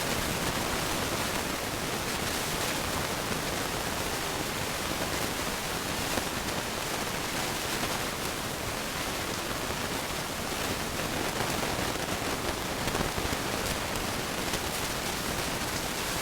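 Steady, even hiss of background noise, with a few faint small clicks.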